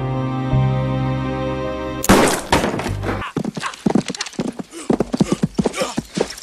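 Sustained film-score music, then about two seconds in a sudden loud crash followed by a rapid, irregular clatter of sharp knocks.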